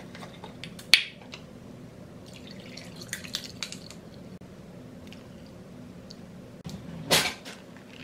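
Cold brew coffee poured from a bottle over ice cubes in a glass, with a sharp click about a second in as the bottle's cap comes off and small ticks of ice as the coffee runs in. A louder knock comes near the end, with a faint steady hum underneath throughout.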